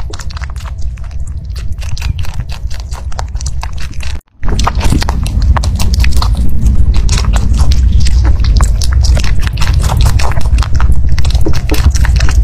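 Rabbit biting and chewing soft fruit close to the microphone: a quick run of small crunches and clicks over a low rumble. The sound drops out briefly about four seconds in, then goes on louder.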